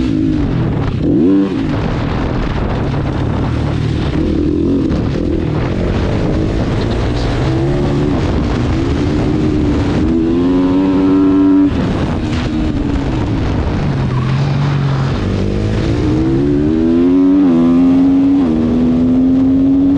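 Single-cylinder GasGas supermoto race bike's engine, heard from on board at racing speed. Its note climbs under hard acceleration and drops at each gear change, over and over through the lap.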